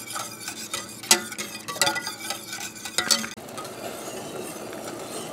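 Metal spoon stirring brine in a saucepan, clinking against the sides of the pot for about three seconds. Then a steady hiss as the brine heats on the burner.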